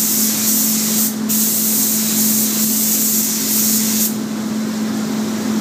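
Gravity-feed air spray gun hissing as it sprays primer, with a brief break about a second in, then cutting off about four seconds in. A steady low hum runs underneath.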